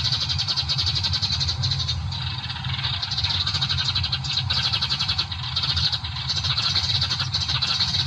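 Flock of small birds chattering, many overlapping high chirps without a break, over a steady low rumble.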